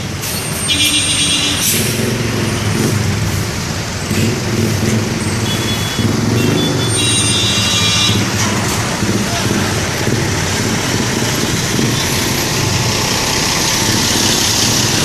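Sinar Jaya bus's multi-tone telolet horn sounding in two short bursts, about a second in and again around the middle, over the bus's steady engine rumble, with voices around.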